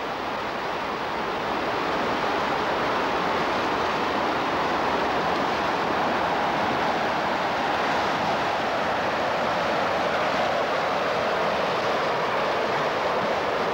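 Estuary tidal bore sweeping in over the sands: a loud, steady rush of water, like the rush of a train, swelling over the first couple of seconds and then holding.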